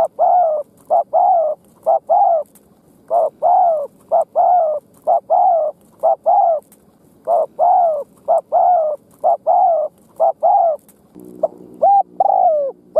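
Spotted dove giving its repeated bowing coo ('gù'): short notes that each rise and fall, in runs of several at about three a second, with short pauses between runs. Near the end the notes turn shorter and a low steady hum comes in underneath.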